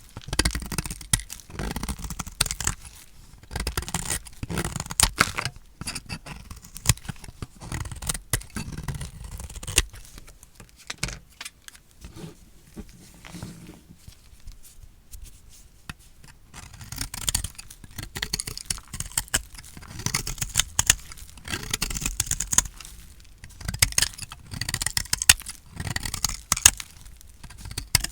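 A knife cutting through dry, painted soap: crisp crunching and crackling with scraping strokes, quieter for a few seconds in the middle.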